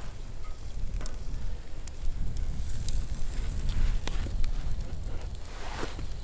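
Campfire crackling, with scattered sharp pops over a steady low rumble.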